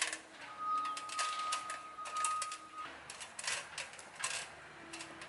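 Irregular sharp clicks and knocks of wood pieces and tools being handled during roof framing work. A steady high tone sounds from about half a second in until nearly three seconds.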